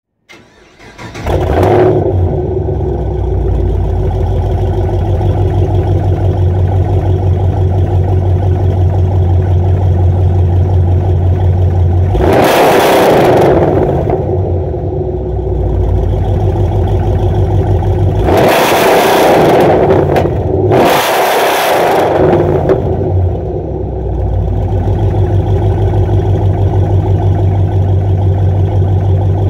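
2010 Camaro SS 6.2-litre V8 with long-tube headers, high-flow cats, resonators deleted and Flowmaster mufflers. It starts about a second in, then idles with a deep, loping exhaust note. It is revved hard once about twelve seconds in and twice more in quick succession some six seconds later, settling back to idle each time.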